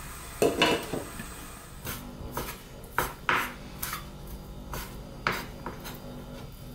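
A glass pot lid set back on a saucepan with a clink about half a second in, then a knife chopping boiled pig ears on a wooden cutting board in a string of irregular strikes.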